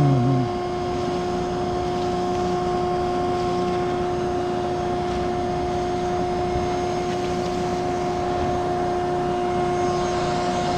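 Small bee vacuum running steadily, a constant motor whine over the rush of air.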